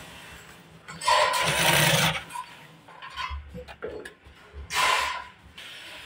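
Electric drill boring a hole through a thin metal strap, in two short runs of about a second each, with light metal clinks between them.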